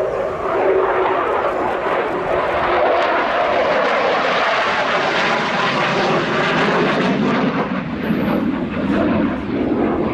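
F-16AM Fighting Falcon's Pratt & Whitney F100 turbofan, a loud, steady, crackling jet noise as the fighter flies a display manoeuvre; its pitch drops about eight seconds in.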